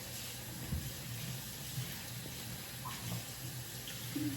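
Kitchen sink tap running steadily while soapy hands are washed under it.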